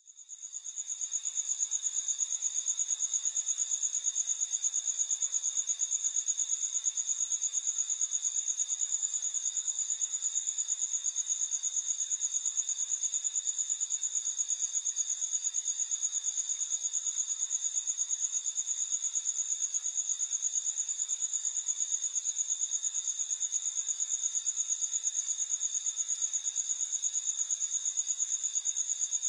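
High-pitched, fast-pulsing cricket trill, fading in over the first second and then holding steady.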